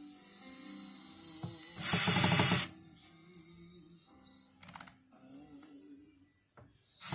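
A loud burst of rapid mechanical ratcheting clicks, lasting under a second, about two seconds in, with a second burst starting near the end. Faint music plays underneath.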